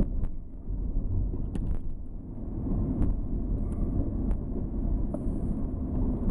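Car driving, heard from inside the cabin: a steady low rumble of engine and tyres on the road, with a few sharp clicks spread through it.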